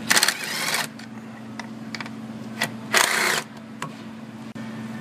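Socket ratchet clicking in two quick runs, one at the start and one about three seconds in, while backing off 10 mm nuts, over a steady low hum.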